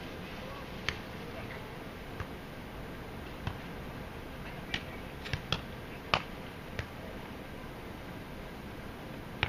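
About eight short, sharp clicks at irregular intervals over a steady background hiss, the loudest about six seconds in.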